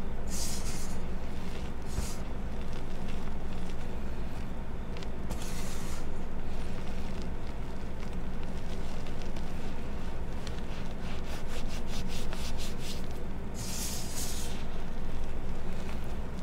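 Reformed gym chalk being crushed and crumbled by hand, crunching in short gritty bursts, with a quick run of crackles and one louder crunch near the end.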